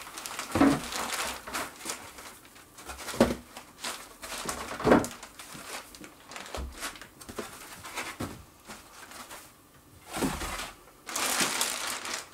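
Foam packing end caps being pulled off a subwoofer and set aside, with the plastic bag around it rustling and crinkling. Irregular handling knocks come through, the two loudest about 3 and 5 seconds in.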